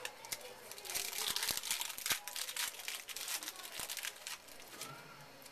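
Wrapper of a trading-card pack crinkling and tearing as it is opened by hand: a rapid run of crackles from about a second in until shortly before the end.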